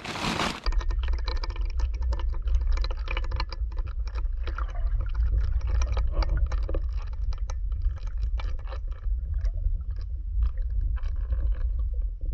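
Water heard through an underwater camera housing: a muffled, steady deep rumble with many scattered crackling clicks.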